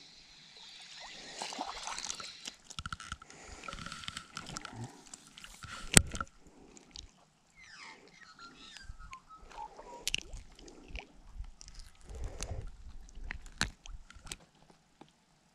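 Close handling sounds of a redfin perch being landed and unhooked: water splashing and sloshing as the fish comes out, then rustling and clicks as the jighead is worked free. One sharp, loud click about six seconds in stands out.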